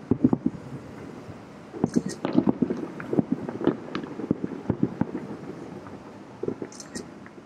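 Aerial fireworks shells bursting in quick, irregular succession, heard from about two miles away, so the bangs come through dull and low. The bursts pile up most thickly about two and four seconds in, with another cluster near the end.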